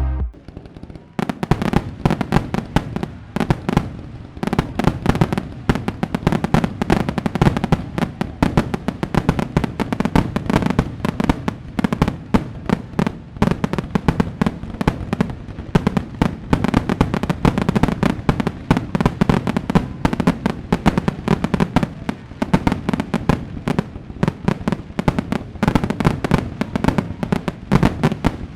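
Fireworks going off in a dense, continuous run of sharp bangs and crackles, starting about a second in.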